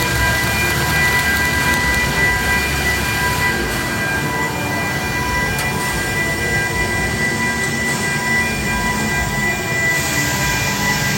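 Stick-welding (SMAW) arc crackling and hissing steadily during a vertical 3G weld, with a steady high whine running over it.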